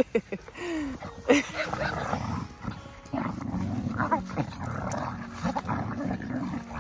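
Boxer dogs play-wrestling and vocalising: a few short yaps in the first second or so, then steady growling through the rest.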